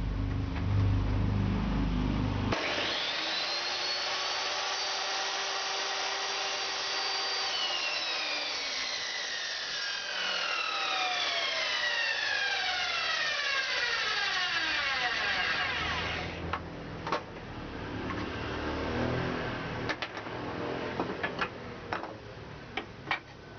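Electric miter saw switched on about two and a half seconds in. It runs at full speed with a steady high whine for about five seconds, then the trigger is released and the blade coasts down with a long falling whine lasting about eight seconds. A few wooden knocks and clicks follow.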